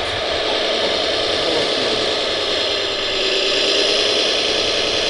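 Radio-controlled Bell articulated dump truck model driving over dirt: a steady engine-like running noise with a whine that drifts slightly up and down in pitch.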